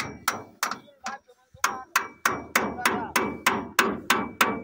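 Hammer blows on metal, about three a second with a brief pause after the first second, each with a slight ring: tapping parts into place in the gear housing of a ZS1115 diesel engine.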